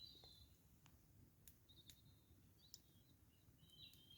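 Near silence, with faint high bird chirps now and then and a few soft clicks.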